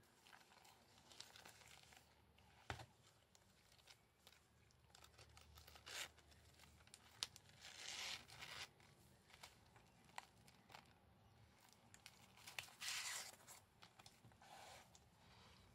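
Gloved hands handling a men's long zip wallet and its foam insert, quietly: soft rustling and scraping, sharp clicks, and a few short scratchy rasps, the longest about halfway through and near the end.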